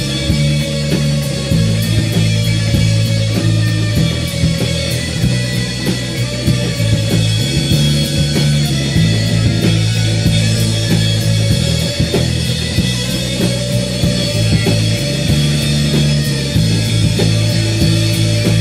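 Live rock band playing loudly: guitar over a bass line that changes notes every second or two, with steady drum hits.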